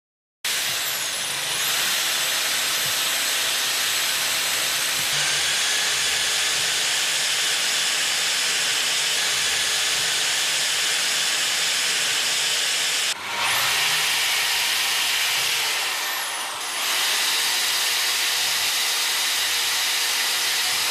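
Electric power tool motor running with a steady loud hiss and a high whine; the whine sags and picks up again a few times, with brief dips in level.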